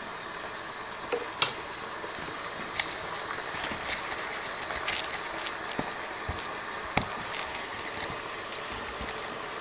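Meat sizzling inside a closed George Foreman electric contact grill: a steady hiss with scattered sharp crackles and pops.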